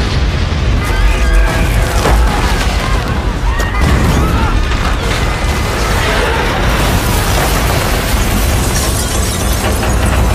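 Film earthquake sound effects: a heavy, continuous low rumble of collapsing buildings with crashing debris, and people screaming over it.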